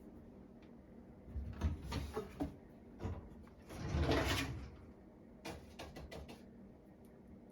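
A kitten climbing about in a wine rack: a few sharp knocks, a louder scrape about four seconds in, then a quick run of small clicks.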